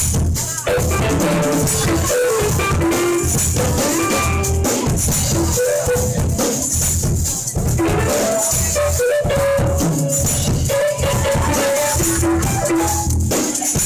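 Live band playing amplified music with electric guitar, bass, keyboards and drums, a tambourine shaken along to the beat. A steady bass pulse runs under a stepping melody line, with constant bright jingling on top.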